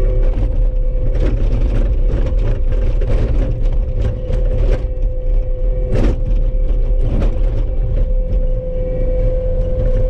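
Skid steer loader's engine running steadily, heard from inside the cab, with a steady whine and scattered knocks and rattles, the loudest about six seconds in.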